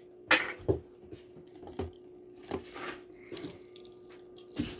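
Plastic blister packaging of a die-cast toy car being cracked and pried open by hand: a string of sharp crackles and clicks, the loudest about a third of a second in.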